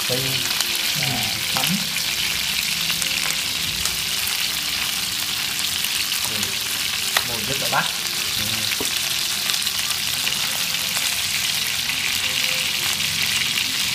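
Marinated field-rat meat frying in hot oil in a nonstick pan: a steady sizzling hiss, with a few light clicks of wooden chopsticks turning the pieces and one sharper click about seven seconds in.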